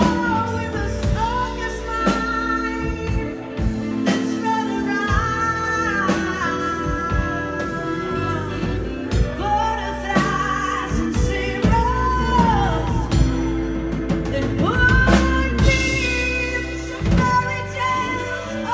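A live rock band playing, with a woman singing lead over drums and keyboard.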